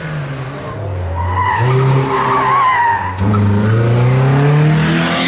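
Peugeot 206 hillclimb car accelerating hard through a bend, its engine note climbing with a gear change about three seconds in. The tyres squeal through the first half as it takes the corner.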